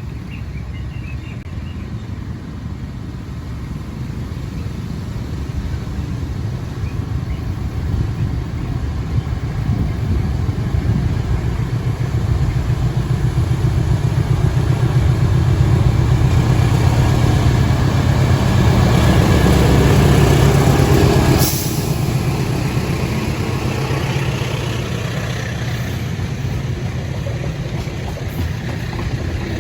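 Train approaching and passing: a low engine rumble grows steadily louder for about twenty seconds, drops sharply as the head of the train goes by, then continues as a steady rolling rumble.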